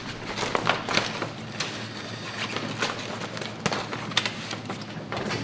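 Stiff Dacron sailcloth rustling and crinkling as it is handled and pulled along, with irregular crisp crackles over a low steady hum.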